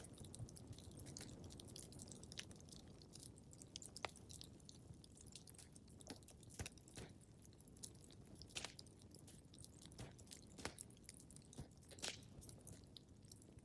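Wood fire crackling in a fireplace: irregular sharp pops and snaps over a soft low rumble of the flames.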